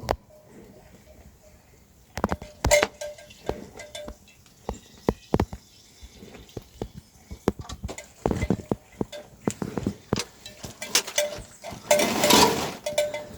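Goats moving about: scattered short clinks and knocks, some with a faint bell-like ring, and a louder animal call near the end.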